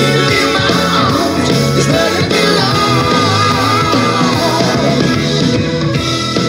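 A song with a singer over a band and a steady beat; about halfway through, the singer holds one long wavering note.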